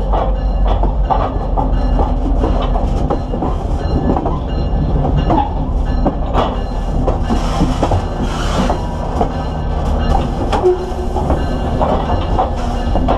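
Steel wheels of a railcar rolling slowly on the rail, heard close at the wheel: a steady low rumble with irregular clicks and knocks of wheel on rail, and a brief hiss about eight seconds in.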